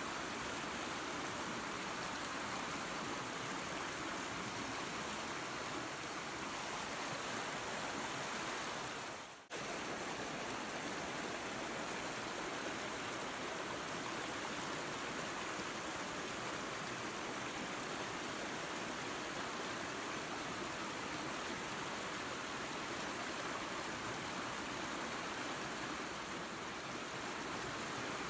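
Waterfall and creek water running in a steady rush. About nine seconds in it briefly fades down and cuts straight back in.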